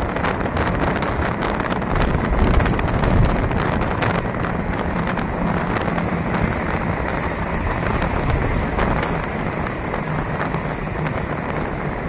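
Steady drive and road noise of a city bus heard from inside the cabin, with a low hum and light rattles.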